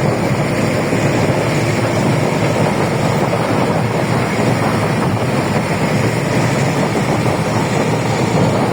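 Loud, steady engine drone mixed with rushing wind noise on the microphone, with no breaks or changes.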